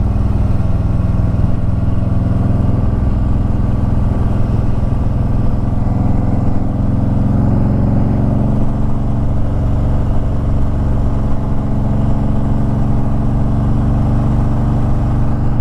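Harley-Davidson Ultra Limited's V-twin engine running steadily as the motorcycle climbs a mountain road, with a rush of wind.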